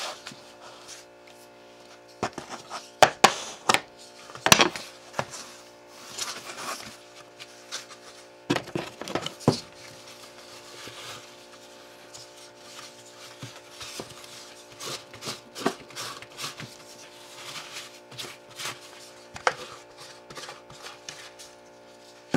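Irregular knocks, thuds and rubbing from pizza dough being tipped out of a plastic tub onto a wooden board and handled. The loudest knocks come about three, four and a half and nine seconds in, over a steady background hum.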